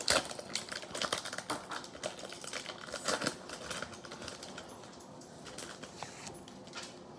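Foil wrapper of a Yu-Gi-Oh! booster pack being torn open and crinkled, then the cards slid out and handled: a run of small crackles and clicks, busiest in the first three seconds or so and thinning out after.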